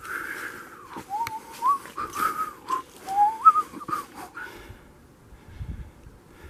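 A person whistling a short run of wavering, sliding notes, with a few sharp clicks in between; the whistling stops after about four seconds.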